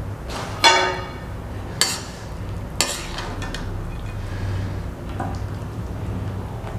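Stainless steel serving spoon, kadai and plate clinking as chicken curry is spooned out of the pan: three sharp metal clinks in the first three seconds, the first ringing briefly, and a softer tap later. A steady low hum runs underneath.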